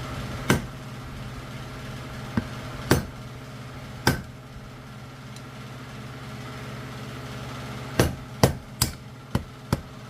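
Hammer blows on a long screwdriver knocking the front seal out of a Chrysler A-518/46RH transmission pump from the inside. There are a few scattered strikes, then a quicker run of five near the end.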